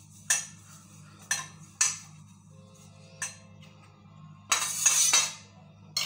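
Steel kitchenware clinking: a spoon against a steel oil bowl and the perforated steel idli steamer plate as the plate is greased with oil. There are sharp single clinks about once a second, then a longer scraping rub about four and a half seconds in.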